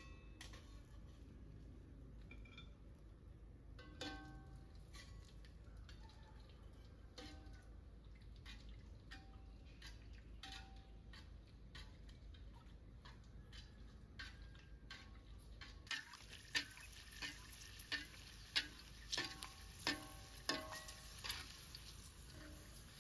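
Metal spatula clinking and scraping in a wok of oil, some strikes ringing briefly. About two-thirds of the way in, a steady sizzle of frying begins as a shrimp cracker fries in the hot oil, with sharper knocks of the spatula on the wok about twice a second.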